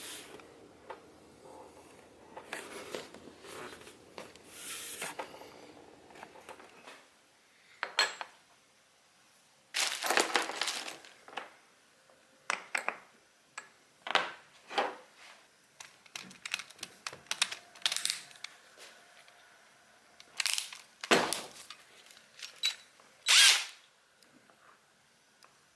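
Hand work on a plastic storage box on a truck roof rack: scattered clicks, knocks and short scraping or grinding bursts, the longest lasting about a second and a half around ten seconds in, with quiet gaps between.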